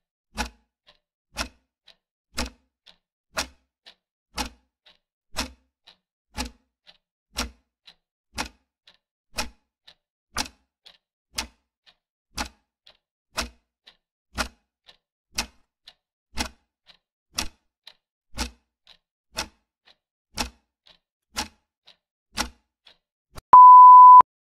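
Clock-ticking sound effect for a quiz countdown timer: a sharp tick every second with a fainter tock between. Near the end a steady high beep sounds as the timer reaches zero.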